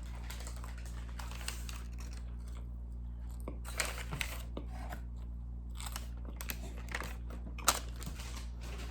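A person chewing and eating on a close microphone, with soft crinkling of paper food packaging and scattered small mouth clicks. A sharp click near the end is the loudest sound, over a steady low electrical hum.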